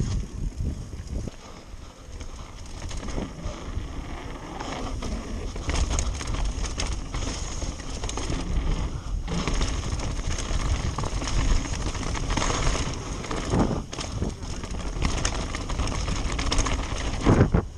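Mountain bike ridden fast downhill over dirt and a wooden boardwalk: tyres rolling and the bike rattling and knocking over bumps, under heavy wind rumble on the microphone, with a louder thump near the end.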